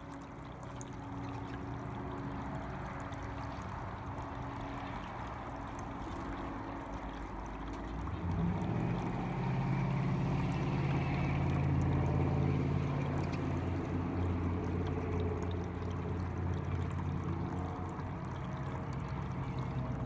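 Water pouring and trickling from a small pump-fed tabletop fountain into its basin. About eight seconds in, a low steady motor hum comes in under it and carries on.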